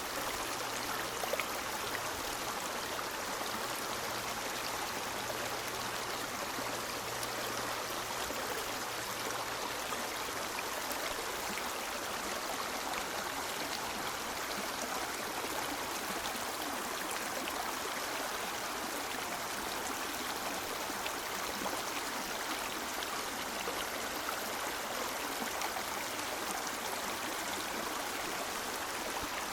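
River water running over rocks in a steady, even rush, with fine splashing and trickling.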